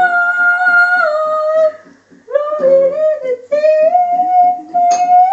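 A woman singing in long, loud held notes, three of them with short breaks between, over a guitar strummed on a single chord. A sharp click sounds near the end.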